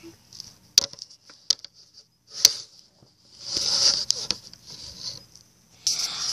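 Handling noise as plastic toy horses and dolls are moved about: a few sharp clicks and knocks, the loudest about two and a half seconds in, then rustling.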